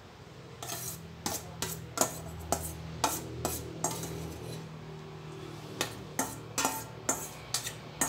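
A metal spoon scraping and clinking against a stainless steel mixing bowl as salad is scooped out onto a plate: a run of sharp scrapes and knocks, then a pause of about two seconds partway through, then another run.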